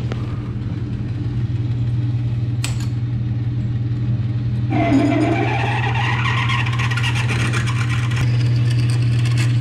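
Metal lathe running with a steady motor hum. About five seconds in, a drill bit fed from the tailstock bites into the metal part, adding a gritty cutting noise with a wavering whine for about three seconds before the lathe hums on alone.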